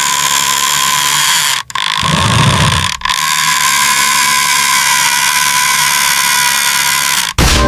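A small electric motor and its gears whining steadily at a high pitch, broken by sudden cut-offs about a second and a half in, at three seconds and near the end. A short low rumble comes between the first two breaks.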